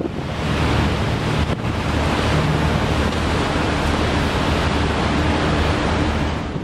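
Wind buffeting the microphone and water rushing past a moving boat, a loud, even rush, with the boat's engine droning low and steady underneath.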